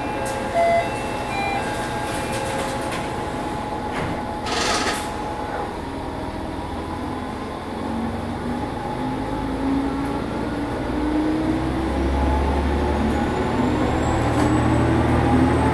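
Matsuura Railway MR600-class diesel railcar: a few short beeps near the start, then a brief burst of air hiss about five seconds in. Its diesel engine then revs up under power, its note climbing steadily while the low rumble grows louder.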